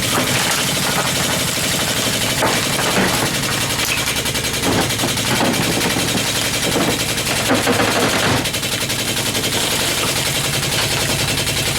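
Air-driven hydraulic jack pump chattering in a loud, continuous rapid rattle as it raises the ram to pull copper tubing out of a refrigerator.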